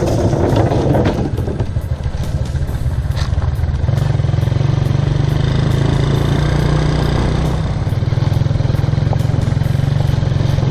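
An old motorcycle's engine running steadily with a low throb as the bike rides along uphill. The engine note dips briefly in the first couple of seconds, then holds even.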